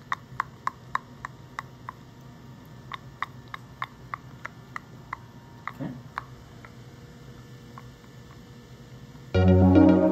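Artificial teeth of an upper denture and a lower flexible partial clicking together as the patient taps his bite: a quick run of sharp clicks about four a second, a pause, another run, then a few scattered taps. The crisp, even contact is the sound wanted from a well-adjusted bite. Electronic music starts near the end.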